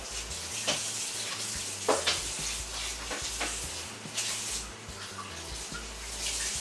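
Red cabbage stir-fry sizzling and bubbling in a covered pan: a steady hiss with scattered sharp pops and crackles.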